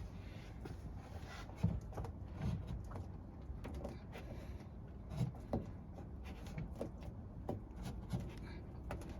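Handling and fitting work on a refrigerator: irregular light knocks and clicks over a low steady hum.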